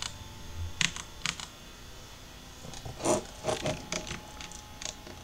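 Scattered clicks of a computer keyboard and mouse: three quick taps in the first second and a half, a quiet pause, then several more, the loudest about three seconds in.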